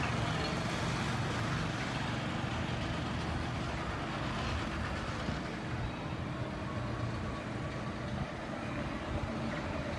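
Steady low rumble of outdoor background noise, with no single distinct event standing out.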